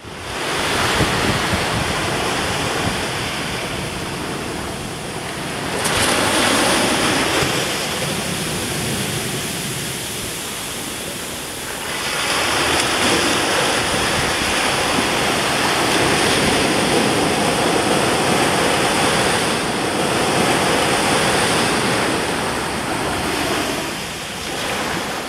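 Loud, even rushing noise with no voice or music in it, swelling about six seconds in and again around twelve, then cutting off abruptly.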